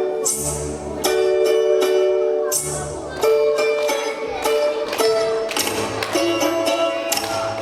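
Folk instrumental music: plucked string instruments sounding quick repeated notes over held chord tones and a low bass line.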